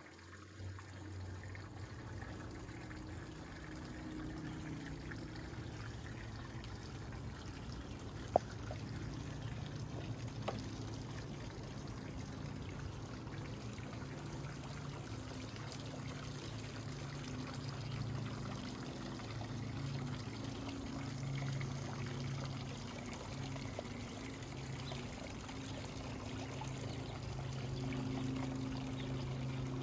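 Water trickling and splashing steadily from a garden water feature, with a single sharp click about eight seconds in.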